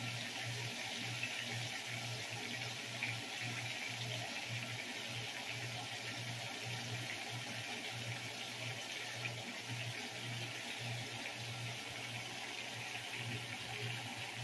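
Seasoned beef neck bones sizzling steadily in a frying pan, with a low pulsing hum underneath.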